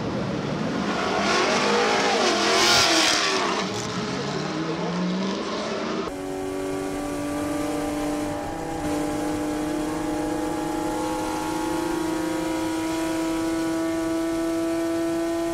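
A race car passing at speed, a loud rush peaking about three seconds in. At about six seconds it switches to a Ferrari race car's engine heard from inside the cockpit at over 200 km/h: a steady high note climbing slowly in pitch as the car accelerates down a straight.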